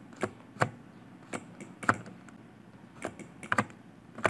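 Computer keyboard and mouse clicking: short, sharp clicks at uneven intervals, about a dozen in all.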